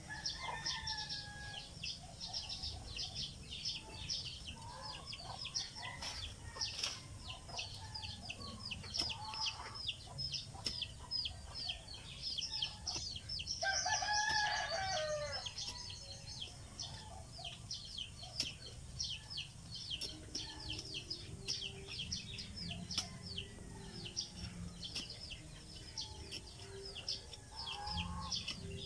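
A rooster crows once, about halfway through, a loud call of about two seconds. Around it runs a steady, fast, high-pitched chirping, with a few softer clucks here and there.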